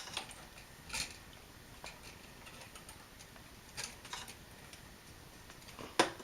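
Pliers twisting a bundle of electrical wires together: a few sharp, irregularly spaced metallic clicks and ticks, the loudest near the end.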